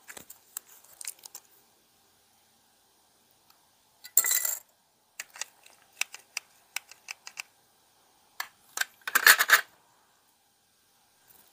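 Small plastic model-kit parts clicking and clattering as they are handled and test-fitted together, with scattered light clicks, a short rattle about four seconds in and a louder rattle about nine seconds in.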